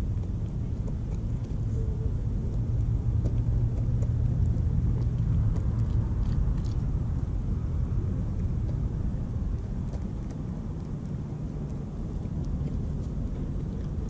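Steady low rumble of distant road traffic, swelling a few seconds in and easing off later on, with a few faint clicks.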